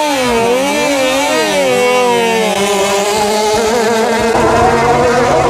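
Racing long-tail boat's engine revving up and down as the boat is let go. After about two and a half seconds it settles into a steady high-pitched run at full throttle.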